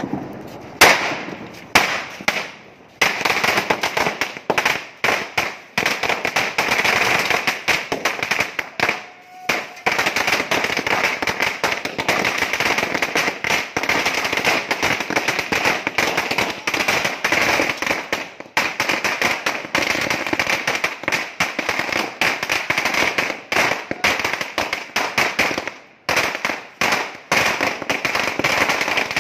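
A 2000-shot Cock Brand firecracker string (ladi) going off: a few separate bangs at first, then a rapid, continuous rattle of bangs with only brief lulls.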